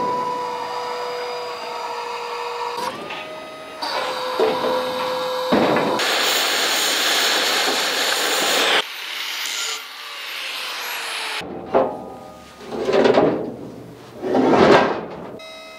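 Small electric-hydraulic crane's pump whining steadily, stepping up in pitch as its valves are worked to lower a steel beam. About six seconds in, a stick (arc) welding electrode crackles and hisses for about three seconds, running a weld along the V-prepped seam of the steel beam. Near the end come two louder noise swells.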